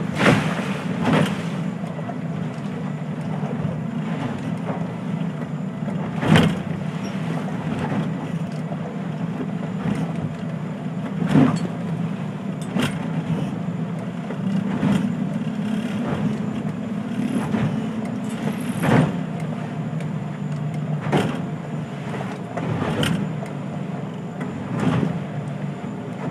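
Motorboat engine running steadily under way, with sharp thumps every one to five seconds at irregular intervals.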